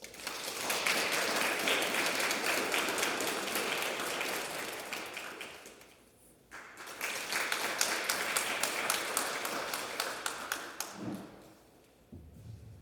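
Small audience clapping, in two rounds: the first fades out, a short pause falls about six seconds in, then a second round rises and fades again.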